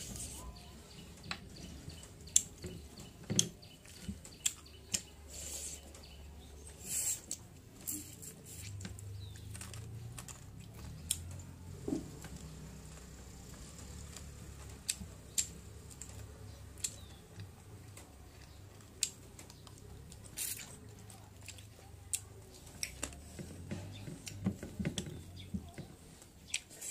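Close-up eating sounds of someone chewing fried chicken and rice eaten by hand, with many short sharp mouth clicks and smacks scattered throughout.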